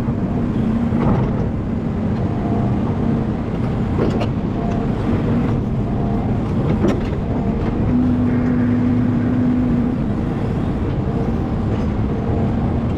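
Excavator's diesel engine and hydraulics running steadily while digging and shaping soil, with a pitched hydraulic tone that swells from about eight to ten seconds in and a couple of short knocks from the bucket or boom.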